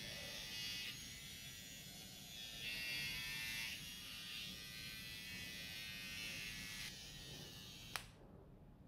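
Braun battery-powered mini face hair remover buzzing as it runs over the chin, louder in stretches. It cuts off about seven seconds in, and a single click follows about a second later.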